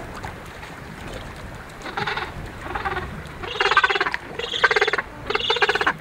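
Gentoo penguins calling: short, raspy, pulsing squawks, two fainter ones about two and three seconds in, then three louder ones in quick succession.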